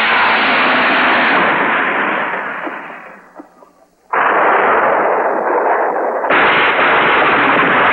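Monster-movie battle and destruction effects, explosion-like, heard as a dense rush of noise through thin, narrow old TV audio. It fades away over about two seconds to near silence, cuts back in suddenly about four seconds in, and gets louder again about six seconds in.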